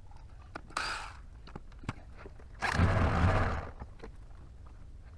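Scraping and light clicking of metal and hand tools on a tractor wheel while its plate is worked off. There is a short scrape about a second in and a longer, louder one about three seconds in.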